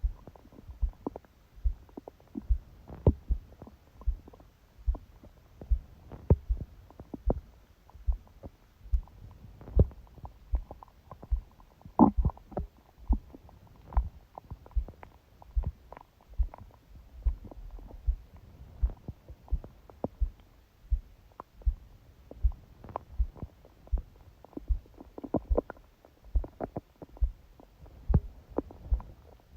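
A sleeping person's fast heartbeat, picked up through the belly by a phone pressed against it, as steady low thumps about one and a half a second. Stomach gurgles run in between the beats, the loudest about twelve seconds in.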